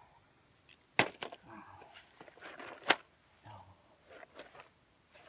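Two sharp knocks of hard plastic, about two seconds apart: a plastic toy truck clattering into a plastic bucket of other toy vehicles.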